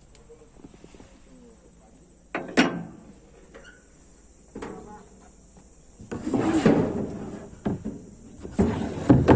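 A few irregular knocks and clatters, a sharp one about two and a half seconds in and a longer clattering stretch around six to seven seconds, over a steady high insect drone.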